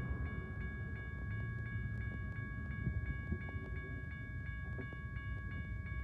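Railroad grade-crossing bell ringing with rapid, even strikes, over a low rumble from the approaching train.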